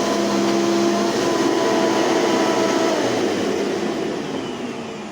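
Hoover upright vacuum cleaner motor running with a steady whine, switched off about three seconds in and winding down. Afterwards the owner concludes this machine is not the one with worn motor bearings.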